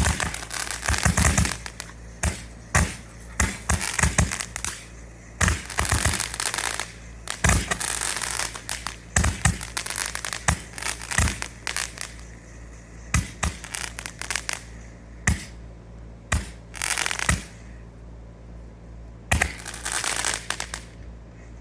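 Large Roman candle (super candle) firing from a rotating Gatling handle: a long run of sharp shots at uneven intervals, several trailing into longer crackling bursts, thinning out near the end over a steady low hum.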